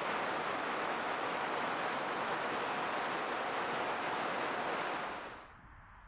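River rapids rushing in whitewater over boulders, a steady loud rush that cuts off suddenly about five seconds in.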